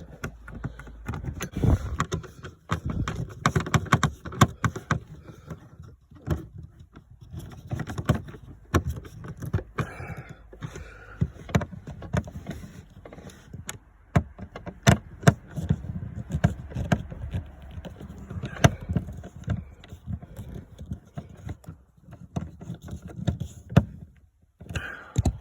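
Bolts and hand tools being handled as trim bolts are refitted under a car's dash: irregular metallic clicks, knocks and light rattles, with a few sharper knocks.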